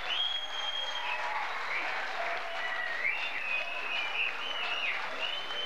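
Audience applauding, with a high held tone over it that shifts up and down in pitch several times.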